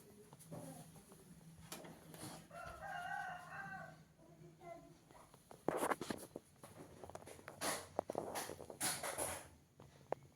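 A rooster crows once, a pitched call lasting about a second and a half, about two seconds in. Later come several short, loud bursts of noise, knocks or rustles.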